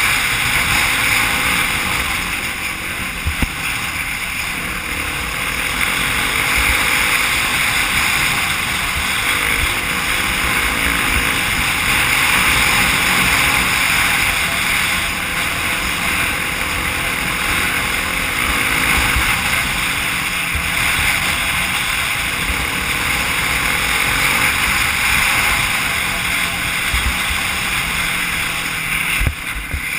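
Wind rushing over a helmet-mounted camera's microphone at riding speed, with a dirt bike engine running underneath and gusty low rumbles from the buffeting. The noise dips briefly near the end.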